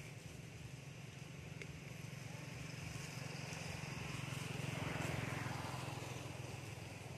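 A motor vehicle passing: a steady low engine hum that grows louder to its peak about five seconds in, then fades.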